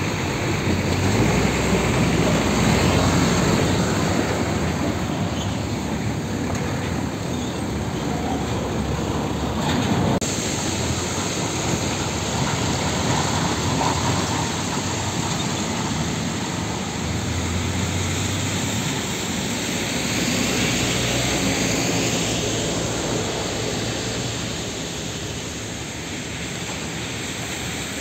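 Heavy tanker trucks' Isuzu Giga tractor units running past on diesel, with tyre noise on a wet road.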